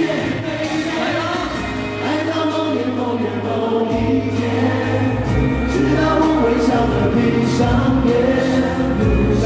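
Male pop group singing live into microphones over backing music, several voices together. A bass line comes in about four seconds in.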